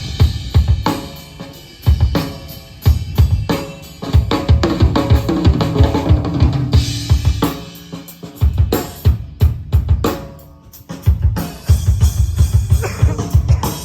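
Drum kit played during a sound check: rapid bass drum runs with snare and cymbal hits, in short phrases broken by brief pauses where the kit rings out.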